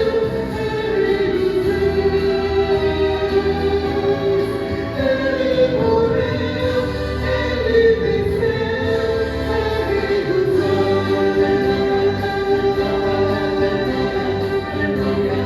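Vocal ensemble singing a gospel song in harmony, holding long sustained chords that shift every few seconds.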